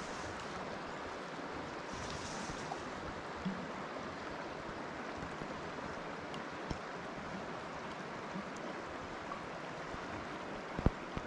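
River current rushing steadily past in a shallow riffle. A sharp knock sounds near the end.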